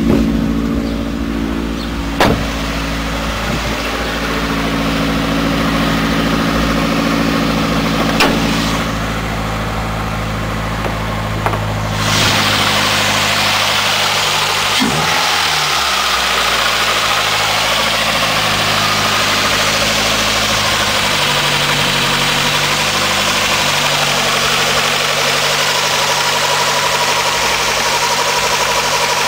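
Ford Escort ZX2's four-cylinder engine idling with a light knock, which the owner traced to a failing water pump. The sound grows louder and hissier about twelve seconds in.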